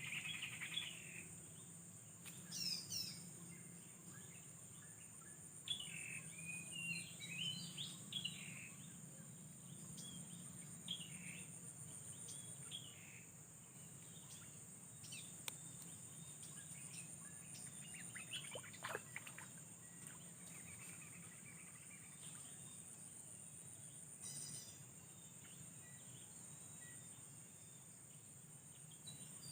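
Faint outdoor ambience of insects trilling steadily on a high, even pitch, with scattered short bird chirps and calls, one of them falling in pitch a little past halfway.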